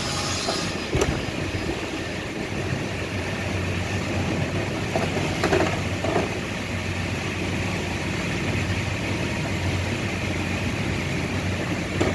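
A steady low hum of workshop background. Over it come a few clicks and knocks, about a second in and again around the middle, as a biscuit joiner is handled on a bench.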